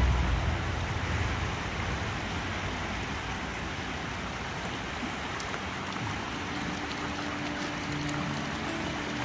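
River water rushing steadily. Faint background music comes in about six seconds in.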